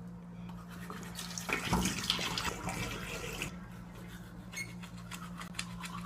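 Bathroom tap running into a sink for about two and a half seconds, starting about a second in, followed by light clicks and knocks, over a steady low hum.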